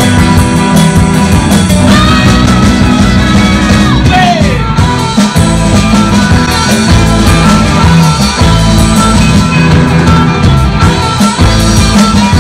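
Live garage-surf rock band playing an instrumental: two electric guitars over electric bass and a drum kit, loud and steady. About four seconds in, a guitar note slides down in pitch.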